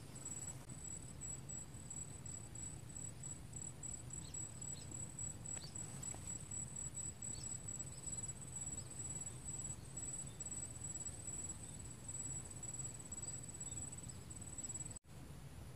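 Insects trilling: a steady high-pitched, finely pulsed trill over a low hum of outdoor background noise. The sound cuts out for an instant near the end.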